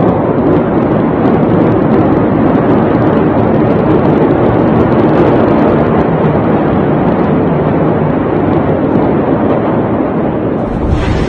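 Loud, steady rumbling noise with faint scattered crackles and no distinct blast.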